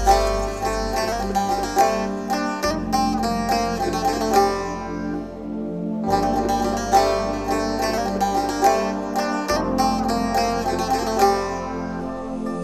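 Background music: a melody of rapid plucked-string notes over sustained bass notes that shift about every three to four seconds.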